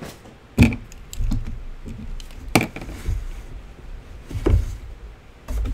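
Jeans being tossed aside and pulled from a cardboard box: a handful of sharp knocks and thumps with rustling handling noise between them.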